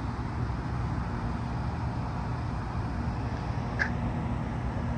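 Steady outdoor rumble and hiss, with one short high chirp a little before the end.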